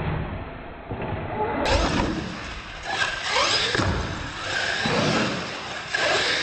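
Electric radio-control monster truck motors whining, the pitch gliding up and down with the throttle, with a few thuds of the trucks on the concrete floor and ramps.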